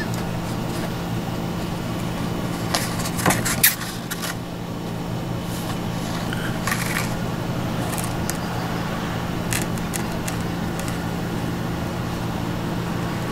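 A steady low hum, with a cluster of sharp clicks and rattles of a phone and a paper lottery ticket being handled about three seconds in and a few fainter clicks later.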